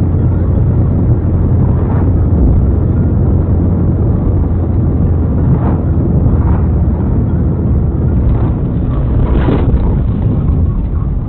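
Loud, steady rumble of a car driving on a highway, picked up by a dashcam's microphone inside the cabin: road, wind and engine noise.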